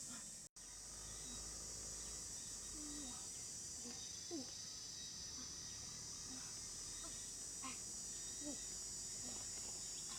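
Steady high-pitched insect chorus, crickets by the sound of the tags, with scattered faint short calls over it. The sound cuts out completely for an instant about half a second in.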